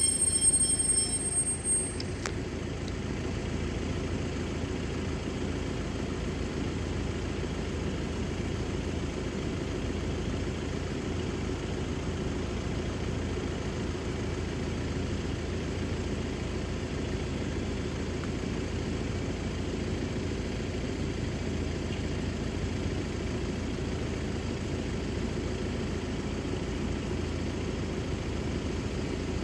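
Level-crossing warning bell ringing and stopping about two seconds in, then the steady low hum of a diesel train's engine idling.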